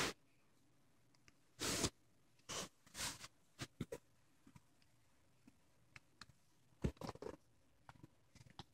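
A handful of short scuffs and rubs from a hand moving against a phone case, with quiet gaps between them.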